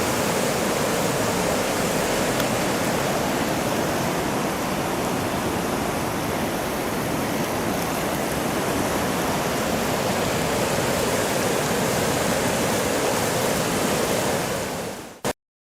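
Floodwater rushing through the fully opened Kamaguchi sluice gates into the Tenryu River, a steady, even rushing of high water. It cuts off suddenly near the end with a click.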